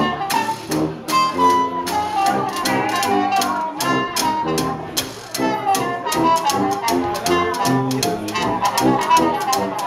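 A small live jazz band playing a swing tune: a trumpet lead over a tuba bass line, with a washboard and cymbal keeping a steady beat.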